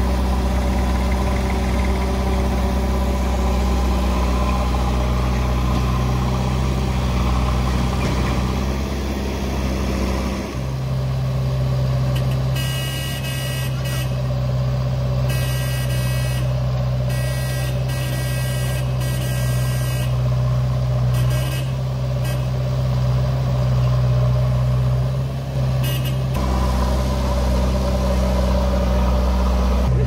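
Diesel engines of a JCB 3DX backhoe loader and a farm tractor running while they work the pit, the engine note changing about ten seconds in. Through the middle, several short high-pitched tones sound on and off, stopping a few seconds before the end.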